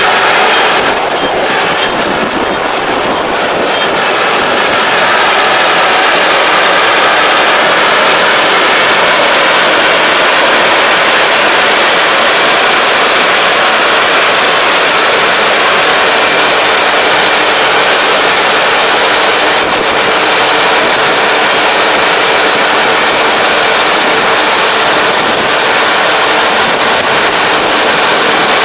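Kubota DR575 five-row combine harvester running loud and steady as it cuts standing rice, a slightly softer stretch in the first few seconds.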